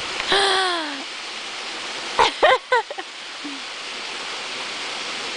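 Steady rushing of flowing creek water, with a long shout falling in pitch near the start and a few short shouts a couple of seconds later.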